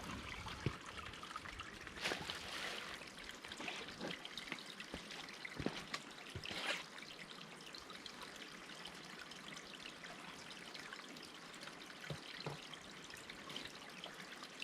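Water trickling and splashing steadily, with a few light clicks and knocks scattered through.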